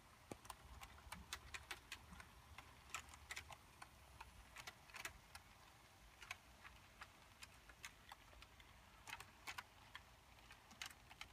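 Model train rolling slowly along the track, its wheels clicking irregularly over the rail joints, several clicks a second, over a faint low hum.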